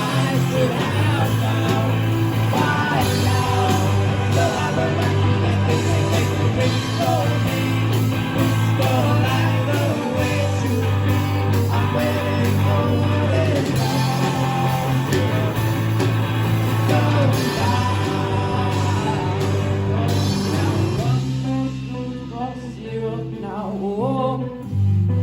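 A band plays a rock song with a lead singer. About 21 seconds in, the full band drops away to a thinner, quieter passage, and the bass comes back in near the end.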